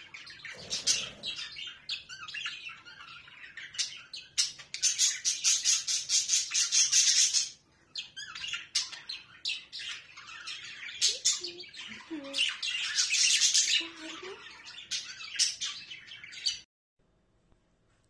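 Budgerigar warbling: a long run of quick high chirps, clicks and chatter, with two stretches of fast scratchy chatter, breaking off suddenly near the end.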